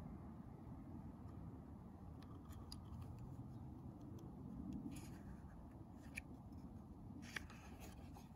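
Faint low, steady outdoor rumble, with a few light clicks and a rustle of paper as a picture book's page is turned, the loudest click about seven seconds in.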